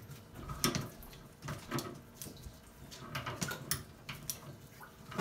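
Scattered light metallic clicks and scrapes of a hand plumbing tool being turned on an angle stop valve's compression fitting on a copper pipe.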